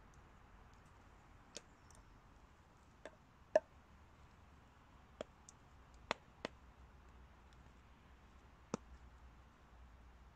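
About eight short, sharp clicks and snaps at irregular intervals over a quiet background, the loudest about three and a half seconds in.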